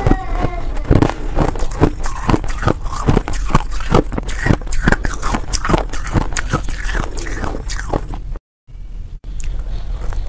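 Close-miked crunching and chewing of reshaped shaved ice in the mouth, a rapid, uneven run of crunches. The sound drops out briefly about eight seconds in, then the crunching picks up again.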